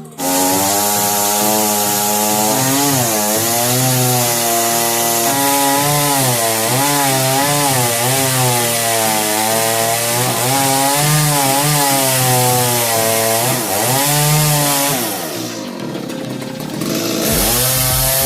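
Chainsaw running hard and cutting into a coconut trunk, its engine pitch rising and falling as the chain loads up in the wood. About three-quarters of the way through it eases off and goes quieter for a moment, then revs back up.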